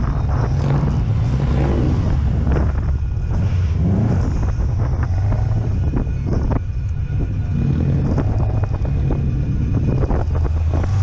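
Subaru Impreza's turbocharged flat-four engine running as a low, steady drone while the car rolls slowly in queuing traffic.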